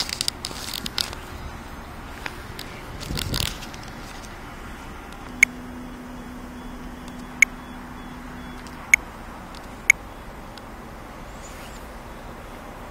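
Quiet railway-platform ambience close to an S-Bahn train: crackling handling noise in the first second and a short rustling burst after about three seconds. A steady low hum follows from about five seconds in for a few seconds, with four short sharp ticks spread over the middle.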